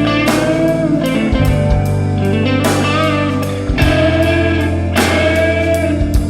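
Instrumental band music with electric guitars over bass and drums, a pop punk song between sung verses.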